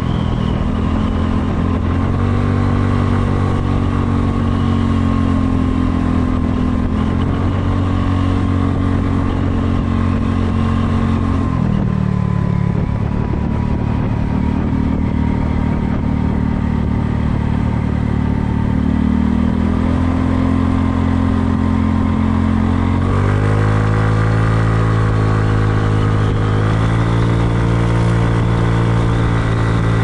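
Kymco People scooter's engine running while riding, its pitch stepping up and down several times as the throttle is opened and eased, with wind and road noise rushing past.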